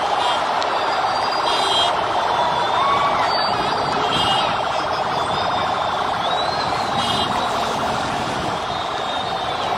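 Steady, loud din of a large outdoor crowd, with a few faint short whistle-like tones gliding over it.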